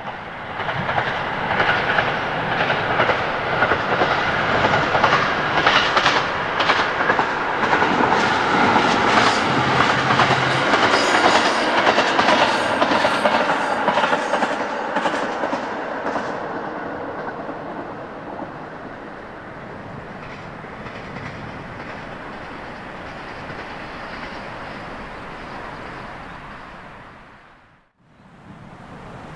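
Kyoto Tango Railway KTR8500 diesel railcar passing, its wheels clicking over the rail joints. It is loud for about the first fifteen seconds, then fades to a steady, quieter running sound, and is cut off abruptly near the end.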